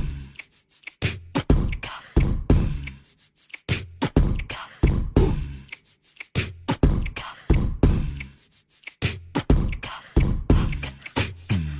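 Background music with a steady beat: deep bass hits and sharp percussive clicks.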